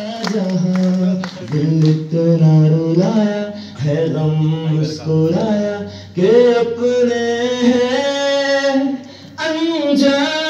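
One voice singing long, drawn-out notes with slides in pitch, in phrases of one to two seconds separated by short breaks.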